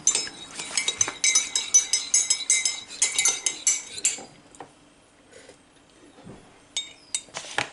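Metal teaspoon stirring tea in a ceramic mug, clinking rapidly against the sides with a ringing tone for about four seconds. It then goes quieter, with a few more clinks near the end.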